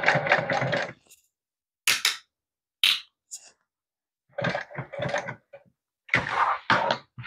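Industrial sewing machine stitching in three short bursts of about a second each, stopping and starting as it sews a top stitch along the cushion cover seam. Two brief sharp clicks come in the pause between the first and second bursts.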